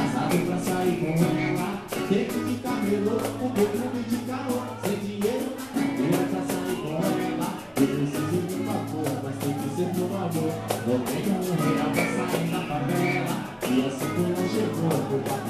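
Live band music with singing and a steady percussion beat, heard from within the audience at a show.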